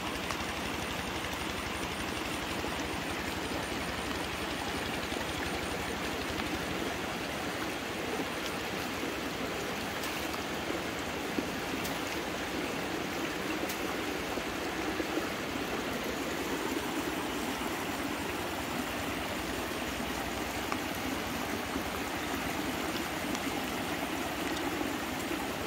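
Steady rush of flowing water, an even noise with no breaks.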